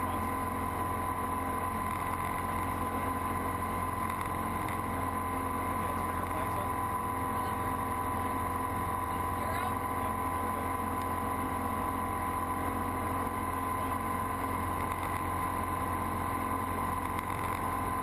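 Steady drone of a small single-engine propeller aircraft's engine and propeller in cruise, heard inside the cockpit. The pitch and loudness stay even throughout.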